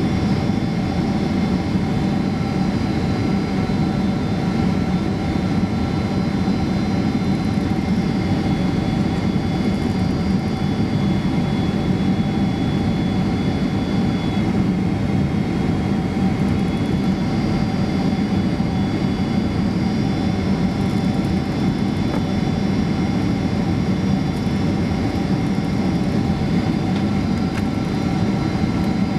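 Steady cabin noise of a Boeing 767-300 jet airliner on approach to landing: a low roar of jet engines and airflow with several thin whining tones held over it, the higher tones shifting slightly now and then.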